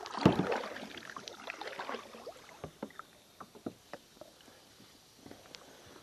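Kayak paddling and handling sounds: a loud splash and rustle near the start, then scattered light knocks and taps as the aluminium paddle is handled against the inflatable kayak.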